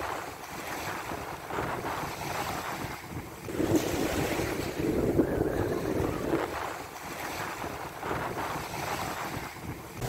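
Small waves washing up onto a sandy beach and running back, the wash swelling to its loudest a little past halfway and then easing off. Wind rumbles on the microphone underneath.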